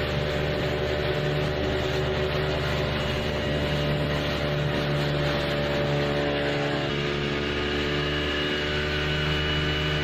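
Boat engine running steadily at constant speed, with the rush of wind and water underneath.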